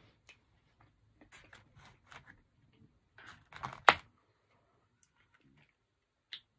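Styrofoam takeout containers of food being handled on a table: a run of small clicks and crackles, with the sharpest, loudest crack about four seconds in and a single click near the end.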